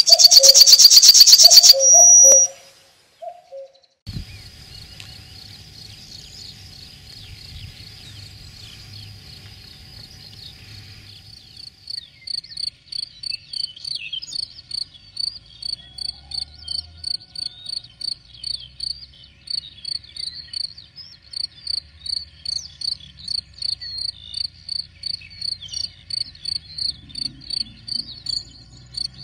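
A loud, high rasping buzz for the first two seconds. Then a cricket sings: first a steady high trill, and from about twelve seconds in a regular chirping, about two chirps a second.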